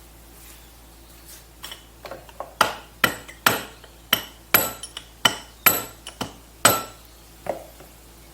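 Hammer blows on the metal parts of a Polaris jet ski pump, struck to drive out the stuck, corroded impeller. About eight hard ringing strikes come roughly two a second, with lighter taps between them and one more softer blow near the end.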